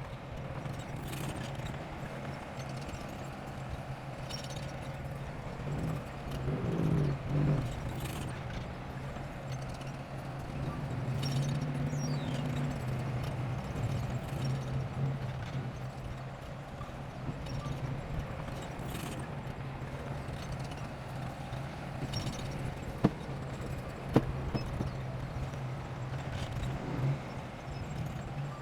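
Bulldozer's diesel engine running steadily with a rhythmic clanking of its steel crawler tracks. It swells louder about seven seconds in, and there are two sharp knocks near the end.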